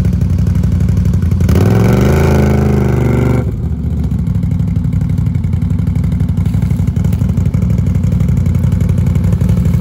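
Can-Am Outlander ATV engine running with the ATV buried in mud. About a second and a half in it revs up and is held high for about two seconds, then drops back abruptly to a steady run.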